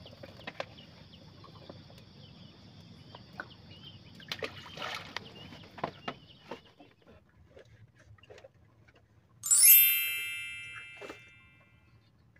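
Soft scattered clicks and handling rustles, then about nine and a half seconds in a single sharp metallic ding that rings on with a bright high tone and fades away over about two seconds.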